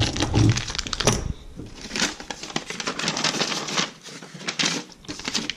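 Packaging crinkling and rustling as it is handled: a dense, irregular run of crackles that is thickest in the middle and fades near the end.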